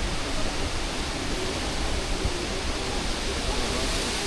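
Waterfall rushing steadily close by, with the wind off the falls buffeting the microphone in an uneven low rumble.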